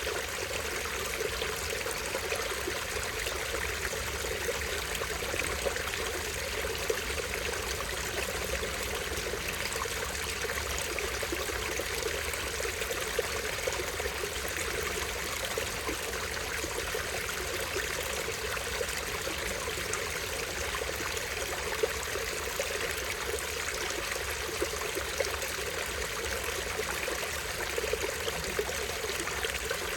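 Small stream running and splashing over a low drop in a steady, even rush of water.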